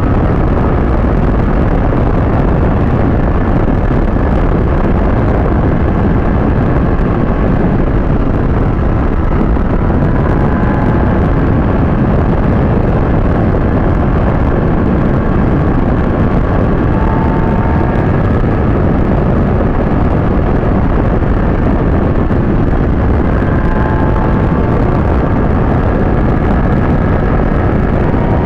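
Steady heavy wind noise on the microphone of a Kawasaki ZX-6R sportbike riding at speed, with the bike's inline-four engine whine faintly under it, shifting in pitch now and then.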